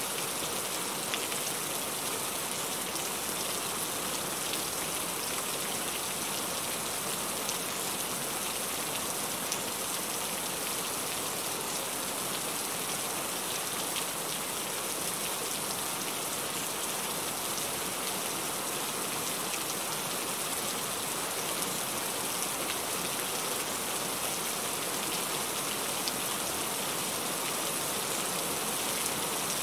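Heavy rain falling steadily: a dense, even hiss with scattered sharper drop ticks.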